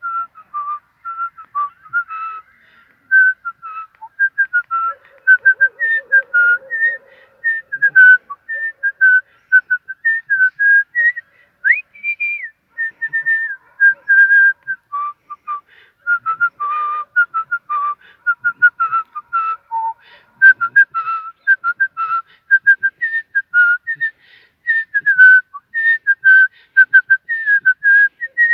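A man whistling a lively tune of quick, separate notes, with a few sharp upward slides between phrases.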